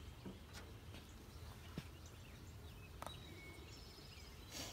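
Faint outdoor ambience with distant bird chirps and a few light knocks as the wooden nuc box and its frames are handled.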